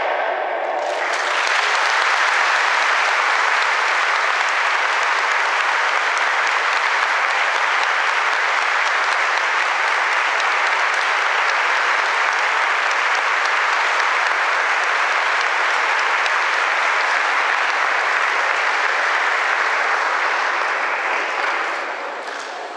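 Audience applauding steadily for about twenty seconds, swelling in about a second in and fading near the end.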